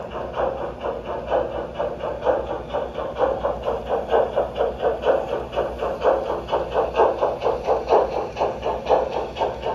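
LGB G-scale model train with a W.W.&F. Forney locomotive running steadily past on its track, making an even rhythmic beat of about three pulses a second.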